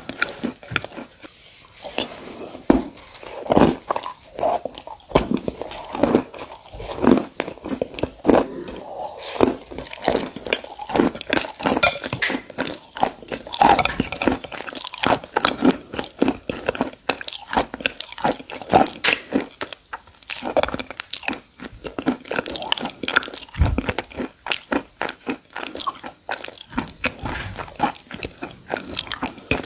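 Person biting and chewing broken pieces of white slate stone (a crumbly eating clay), with a dense, irregular run of sharp crunches, several a second.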